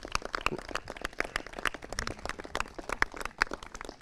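A small group of people clapping: scattered, irregular hand claps of brief applause.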